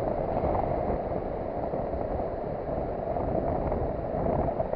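Steady rushing noise of sea surf and wind at the shoreline, even throughout with a slight swell near the end.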